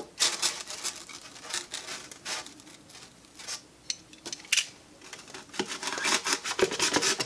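Snap-off utility knife cutting through an expanded polystyrene (Styrofoam) board in a run of short, irregular strokes that come thicker near the end.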